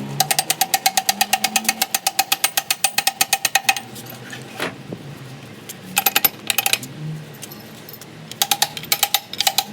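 Rapid metallic knocking in gearbox repair work, about ten sharp strikes a second with a ringing tone. A long run lasts nearly four seconds, and two shorter runs come about six and eight and a half seconds in.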